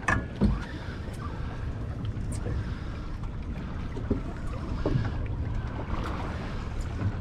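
Wind on the microphone over the steady wash of water around a small boat, with a few light knocks and clicks from gear on board.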